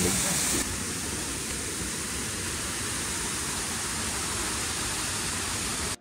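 Steady rush of a waterfall-fed mountain creek, a little quieter from about half a second in.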